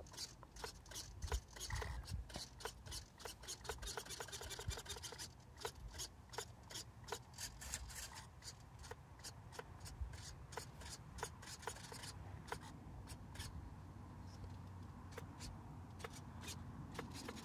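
Faint, rapid, irregular clicking and ticking, densest about four to five seconds in and thinning out near the end.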